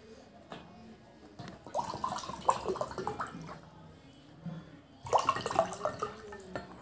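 Water poured from a plastic bottle into glass tumblers of whisky, gurgling and splashing in two bouts, about two seconds in and again about five seconds in, with short rising notes as the glass fills.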